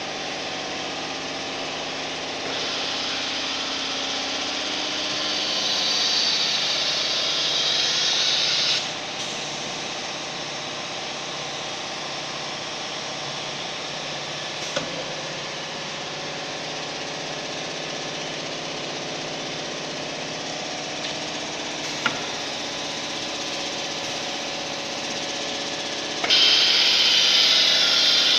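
CNC woodworking router machinery running: a steady mechanical hum with a hiss that swells for several seconds and drops off, two short clicks, then a sharp step up in level near the end.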